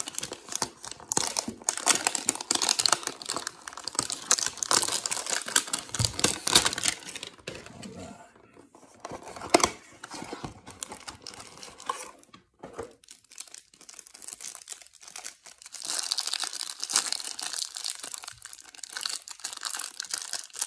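Cardboard trading-card hanger box torn open, then the wrapped card pack inside crinkled and handled. The crackling comes in bursts with a couple of short pauses.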